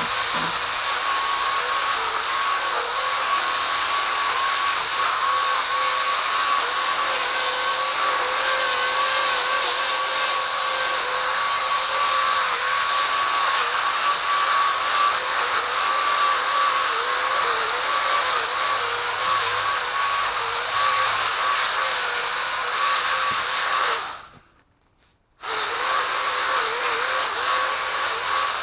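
Powered pole saw motor running with a steady high whine, its pitch dipping briefly now and then as it loads up in the cut. It cuts out abruptly for a second or so near the end, then starts again.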